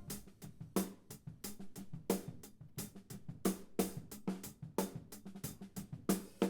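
A drum-kit hi-hat played in a steady stick rhythm, heard through its soloed close microphone, an AKG 451 aimed at the edge of the hat for a thin, bright sound. Some snare and kick bleed from the rest of the kit sits faintly underneath.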